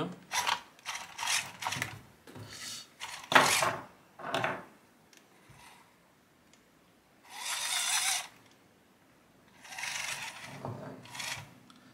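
WPL C24-1 mini RC crawler's electric motor and geared drivetrain whirring in short bursts with pauses, then two longer runs of about a second each near the middle and near the end. This is a test run of the freshly fitted centre driveshafts, and the drivetrain is working correctly.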